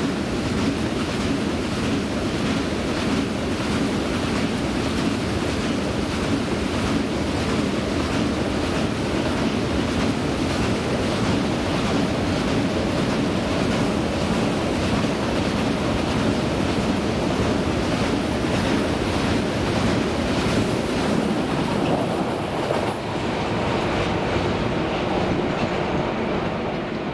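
Freight train of loaded open coal wagons behind an electric locomotive rolling past: a steady rumble of wheels on rail with a regular clickety-clack. It eases slightly near the end as the last wagons pass.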